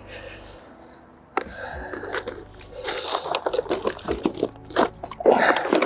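Plastic bait tubs and packaging being handled, rustling and crinkling with small clicks and scrapes, starting suddenly about a second and a half in.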